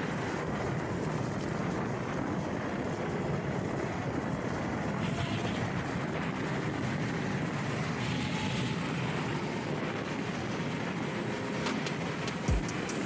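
Steady rush of wind and tyre noise from a Nami electric scooter riding fast on a concrete road, picking up speed from about 30 to nearly 50 mph. A few ticks and a low thump come near the end.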